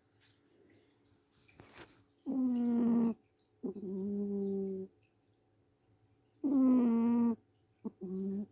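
Cat snoring very loud, in pitched, humming snores: two breaths, each a higher snore followed by a lower one, with short quiet gaps between.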